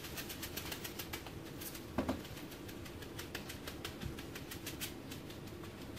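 Soft, irregular clicking and scraping of a gloved hand packing wet mortar around a stove pipe in a brick chimney opening, with one slightly louder knock about two seconds in.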